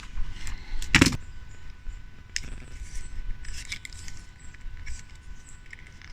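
Hands handling small metal scraps: light clicks and jingly rattles as twist-tie wire is wrapped onto a homemade lure, with one louder knock and rustle about a second in.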